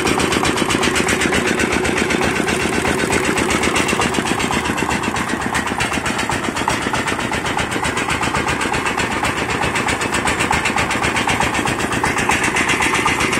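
S1115N single-cylinder diesel engine of a công nông farm vehicle running steadily, a rapid even chugging of firing pulses, while it drives a rice thresher.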